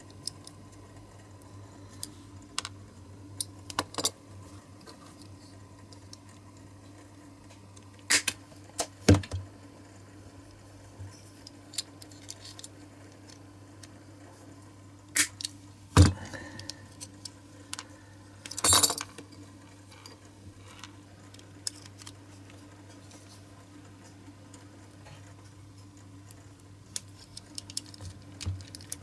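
Small metal clicks, clinks and knocks from handling a Lesney Matchbox diecast car body and its baseplate with pliers, with a few sharper knocks and a short rattle of small parts, over a faint steady hum.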